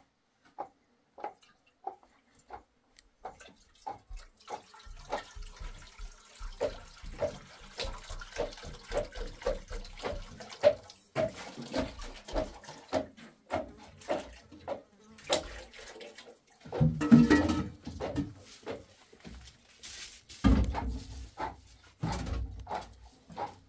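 Water splashing and sloshing, with evenly spaced knocks about twice a second and louder splashes in the second half.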